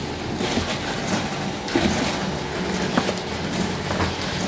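Broccolini packing-line machinery running steadily, with scattered knocks and clatter from bunches being handled on metal packing tables.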